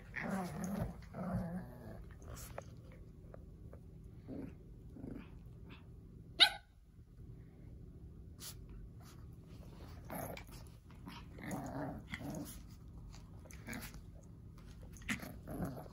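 Two puppies play-fighting, growling in short, low bouts, with scuffling clicks between them. About six and a half seconds in comes one short, sharp, high squeal, the loudest sound in the stretch.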